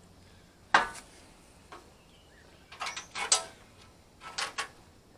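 Metal clanking: one sharp clank about a second in, a faint click, then a quick cluster of clanks and clicks around three seconds and two more near the end, as metal pieces or tools are handled.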